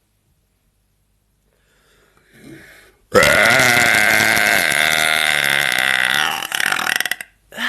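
A woman's long, loud burp, starting about three seconds in and held for about four seconds at a steady pitch, then breaking up into stutters before it cuts off.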